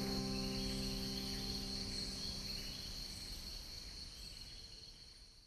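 Steady high-pitched chirring of crickets over a low held chord; the chord dies away about three and a half seconds in and the whole sound fades out.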